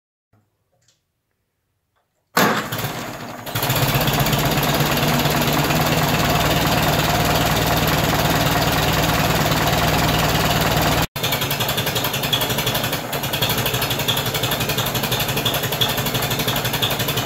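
David Brown 25C tractor's four-cylinder engine catching with a sudden loud burst, then running steadily. It cuts out for an instant about 11 seconds in, then runs on.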